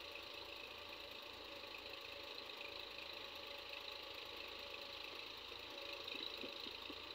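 Tractor diesel engines running steadily while powering tractor-mounted hydraulic backhoe excavators that are digging soil.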